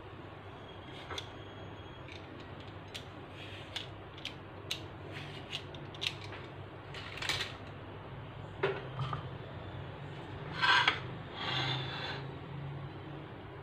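Scattered light scrapes and clicks of a vegetable peeler shaving curls off a block of chocolate onto a plate. Near the end come a few louder scrapes and knocks as a glass cake stand and the plate are shifted on the counter.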